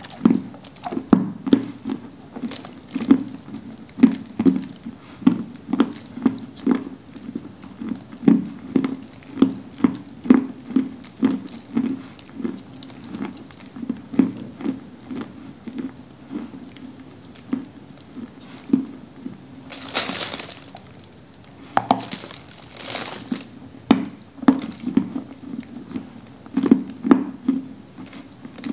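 Close-up chewing and crunching of a dry, medium-soft, dusty block of Orsk 'cream' edible clay, with steady chews about twice a second. Two louder, crumbly crunches come about two-thirds of the way through.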